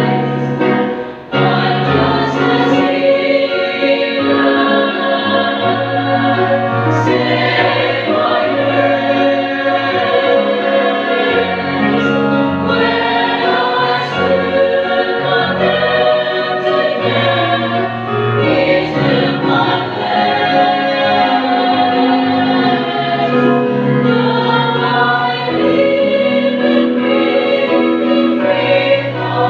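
Mixed-voice church choir singing a gospel hymn in parts, with a brief break about a second in before the chorus begins.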